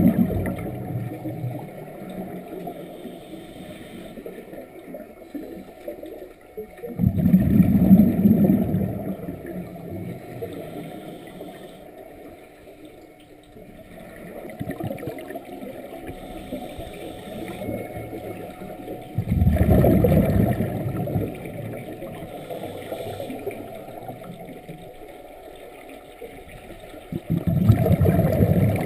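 Underwater sound of scuba regulator exhaust bubbles, a low rushing gurgle that swells with each exhaled breath about every ten seconds, with a quieter wash of water between breaths.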